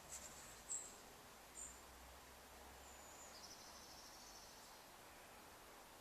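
Near silence: room tone with a few faint, high chirps about a second in and a short faint trill a little past the middle.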